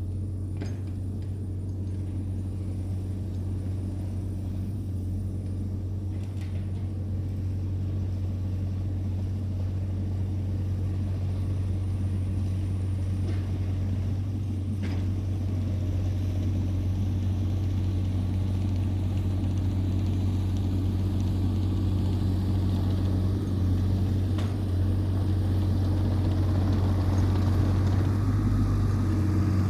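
Heavy equipment engine running steadily with a deep, even hum that slowly grows louder, with a few faint knocks over it.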